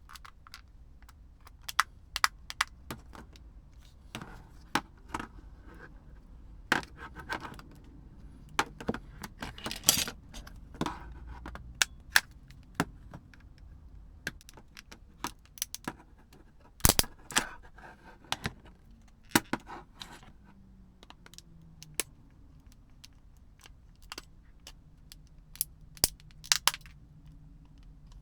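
Small hard plastic and metal parts being handled while repairing a Blu-ray remote control: irregular sharp clicks, taps and light clinks, the loudest about ten and seventeen seconds in.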